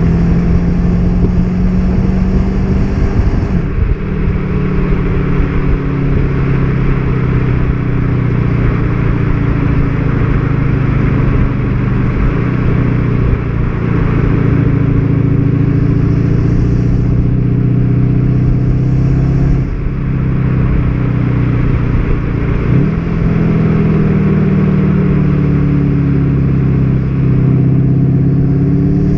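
Volkswagen Golf 7 GTD's 2.0-litre four-cylinder turbodiesel engine pulling the car along, its deep note holding fairly steady with a few shifts in pitch as engine speed changes, over a constant road noise.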